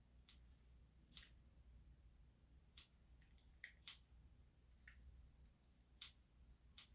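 Grooming scissors snipping the hair on a puppy's paw: about seven short, sharp snips at uneven intervals of roughly a second.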